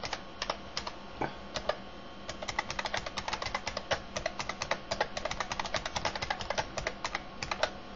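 Computer keyboard typing: a run of keystrokes, a short pause about two seconds in, then fast steady typing that stops just before the end.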